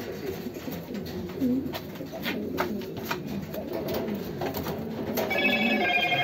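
Domestic pigeons cooing in a loft, low wavering calls overlapping throughout, with scattered clicks and knocks. A brief high-pitched ringing tone comes in near the end.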